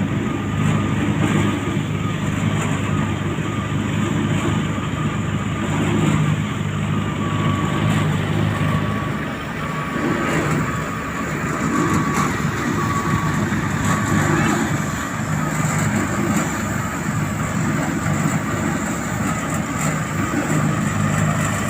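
Heavy diesel engines of asphalt-paving machinery running steadily.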